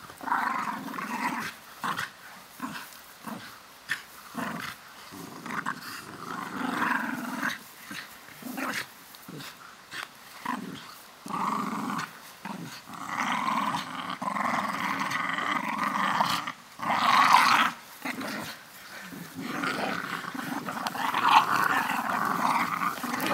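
Young Staffordshire bull terriers play-growling in repeated rough bouts while tugging on a rope toy. The bouts grow longer in the second half, with the loudest growl a little past the middle.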